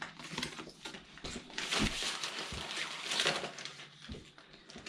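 Small plastic sprayer fittings and their packaging handled by hand: rustling with light clicks in several short bursts.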